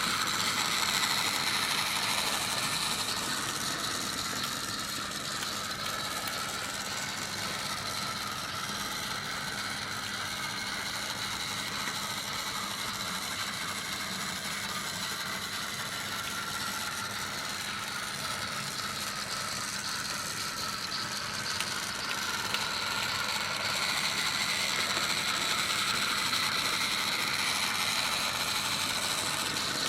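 The small battery motor and plastic gearbox of a Tomy Talk 'n' Action James toy train whirring steadily as it runs, a little louder about two-thirds of the way through.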